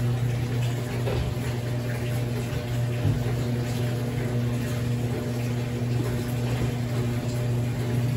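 Top-loading washing machine filling with water: a steady low machine hum over the faint rush of water coming into the tub, running slowly because many taps are open at once.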